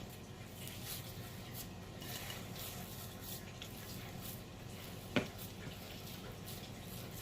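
Soft, faint squishing and scraping of thick semolina and coconut dough being mixed in a bowl, with one sharp click about five seconds in.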